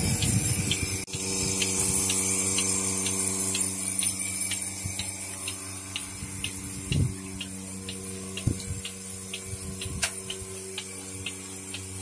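Electric bucket milking machine running: the vacuum pump motor hums steadily with an airy hiss while the pulsator clicks evenly, about two to three times a second, as it alternates vacuum to the teat cups during milking. A few dull knocks come in the second half.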